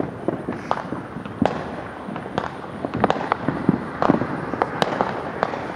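Fireworks going off all around: an irregular run of sharp bangs and pops, several a second, over a steady background rumble.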